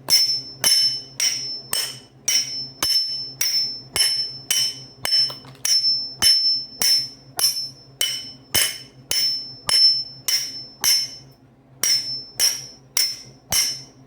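Steady hammering, metal striking metal, about one and a half to two blows a second, each with a short high ring. There is one brief pause near the end.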